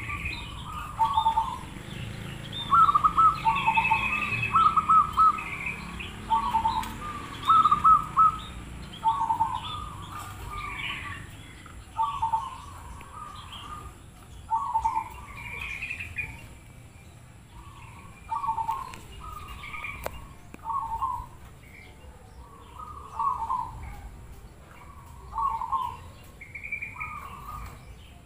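Zebra doves (perkutut) cooing: short phrases of quick staccato coos, one after another in the first several seconds, then repeated about every two seconds, with higher chirps from other birds mixed in.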